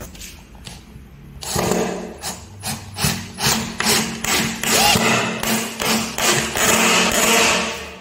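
Cordless drill driving full-thread screws into plywood. From about a second and a half in the motor runs with a steady hum under a rapid string of sharp clicks, about three a second. It stops just before the end.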